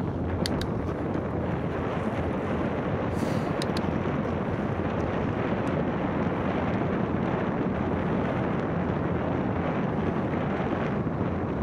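Wind rushing over the microphone of a camera on a moving bicycle, a steady noise. A few light ticks come in the first four seconds.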